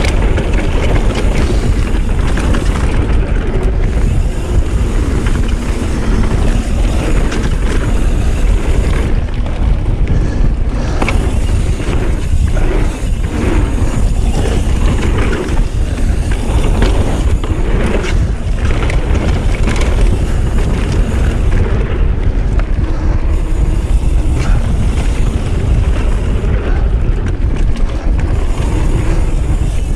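Wind buffeting the camera microphone and mountain bike tyres rumbling over a packed-dirt trail during a descent, steady throughout. A cluster of short knocks and rattles from the bike over bumps comes in the middle.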